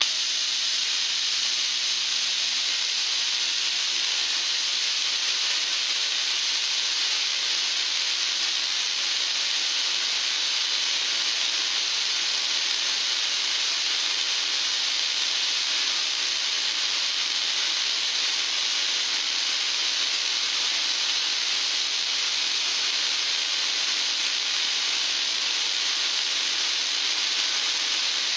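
Homemade spark-gap Tesla coil running on a 9 kV 30 mA transformer, its static spark gap firing and purple streamers coming off the toroid's breakout screws. The discharge noise comes on abruptly and holds steady and loud.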